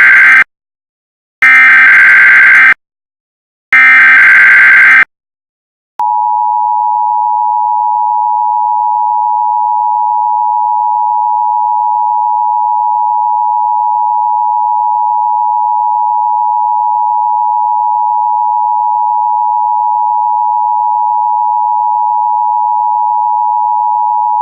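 Emergency Alert System tones. First the end of one burst of the SAME header's warbling digital data, then two more full bursts about a second apart. After a short silence, the steady two-tone attention signal starts about six seconds in and holds.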